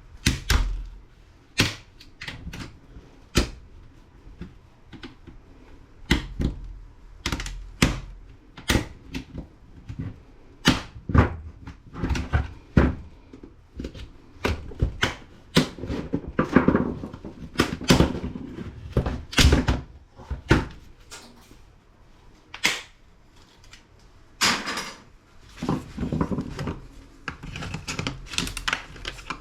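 Irregular sharp plastic clicks, snaps and knocks as a laptop's screen assembly is pried and pulled apart by hand, with a few longer scraping sounds around the middle and again near the end.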